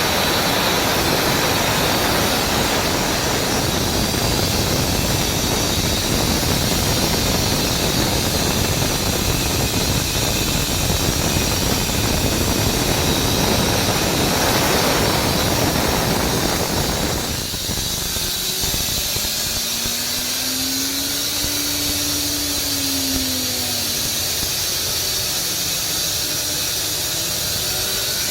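Atlas Copco GA 18 kW VSD rotary screw air compressor running with a loud, steady rush of air and machine noise and a hiss on top. About two-thirds through the rush drops away, leaving the hiss and a motor whine that rises and falls in pitch.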